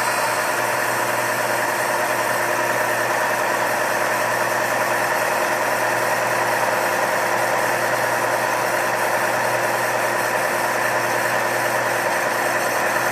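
Ryobi bench belt sander running steadily with a fresh 4x36 inch sanding belt, its motor hum and the belt rushing over the rollers while the belt's tracking is checked.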